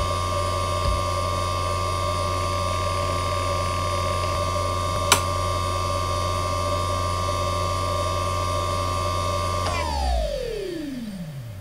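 Fujitsu XV10 MPF3102AT 5400 rpm 3.5-inch IDE hard drive spinning with a steady high spindle whine during a sequential read benchmark, with a single sharp click about five seconds in. Near the end the power is cut and the whine glides smoothly down in pitch and fades as the platters spin down.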